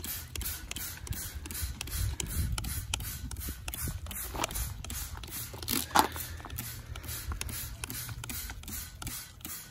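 Plastic trigger spray bottle spritzing liquid onto galvanized corrugated roofing metal, a quick steady run of short squirts at about three a second. One squirt about six seconds in is louder.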